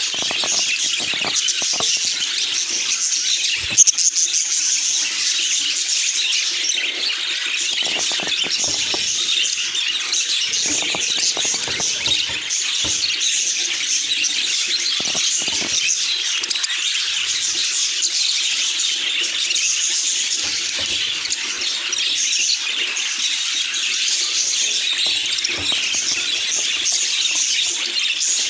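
Budgerigars chattering and warbling without a break, a dense mix of quick chirps. A single sharp knock about four seconds in.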